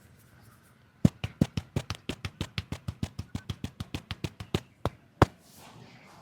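Percussive massage strokes: hands rapidly slapping the body at about six strikes a second for some four seconds, ending with one harder slap after a short pause.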